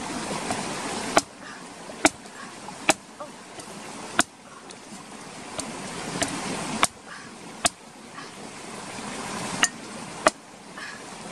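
Machete chopping into the fibrous husk of a green coconut: about nine sharp strikes at irregular intervals, one to two seconds apart.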